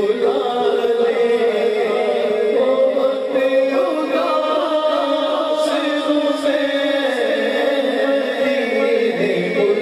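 Men's voices singing an unaccompanied Urdu na'at (devotional poem) through a microphone, in long held notes that bend slowly in pitch.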